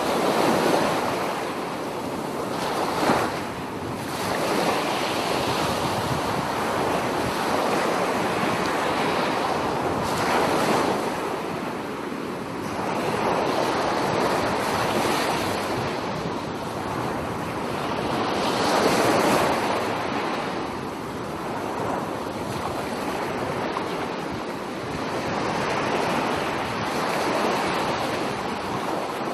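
Sea surf washing onto a sandy beach, a steady rushing that swells and fades every several seconds as waves break.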